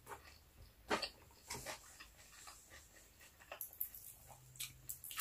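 Quiet, scattered chewing and mouth sounds of someone eating, with small clicks and squishes from fingers picking fried milkfish apart and handling rice, one louder smack about a second in and a busier run of small sounds in the second half.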